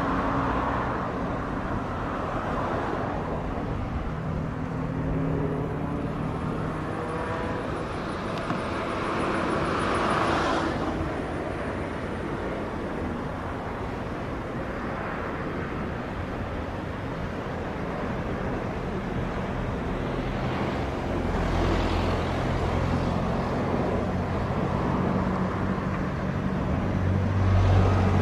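Distant jet engine noise of a Boeing 737-900ER on final approach and landing, heard over a steady outdoor rumble. It swells about ten seconds in and again near the end, when a low rumble grows loudest as the jet reaches the runway.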